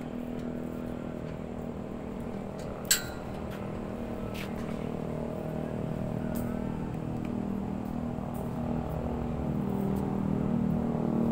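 Steady low hum of motor vehicle engines, growing louder toward the end, with one sharp click about three seconds in.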